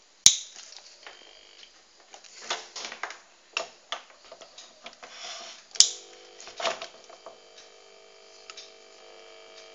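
A sharp switch click, then scattered clicks and knocks. After another sharp click about six seconds in, the jigsaw's motor sets up a steady hum, running on the reduced current let through by a series test lamp wired in line.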